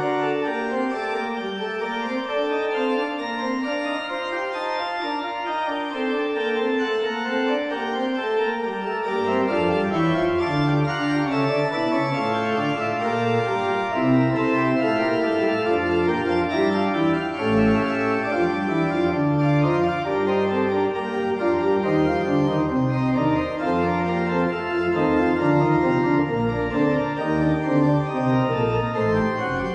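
Church organ playing sustained chords. A deep bass line comes in about nine seconds in, and the music grows fuller and a little louder.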